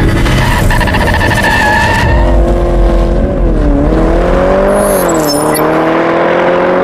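Race-car sound effect: a revving engine and squealing tyres, loud, its pitch dipping twice and then slowly climbing.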